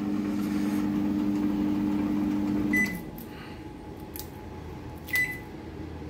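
LG microwave oven running with a steady hum on a test run after its burnt-out magnetron was replaced with one from a Daewoo, with no sparking. About three seconds in the hum cuts off with a short beep, and a second short beep follows about two seconds later.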